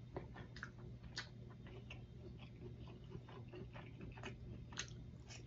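Faint chewing and wet mouth clicks of a person eating cheese-stuffed breaded chicken, scattered soft ticks with no steady rhythm, over a low steady hum.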